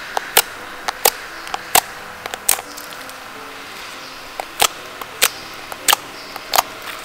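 White homemade slime being pressed and kneaded by fingers, giving irregular sharp clicks and pops from trapped air, with a pause of about two seconds midway.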